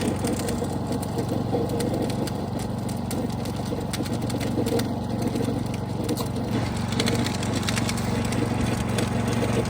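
An engine running steadily, with irregular crackling and clicking over it.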